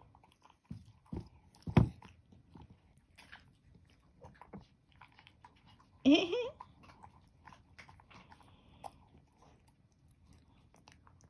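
Senior long-haired dachshund chewing a homemade raw-meat and vegetable meal from a glass bowl, mostly quiet, with a few sharp knocks in the first two seconds. A short rising voice sound comes about six seconds in.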